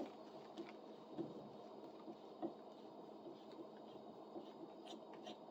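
Faint, scattered light clicks and taps from a small folding pruning saw being handled, over a steady low room hum.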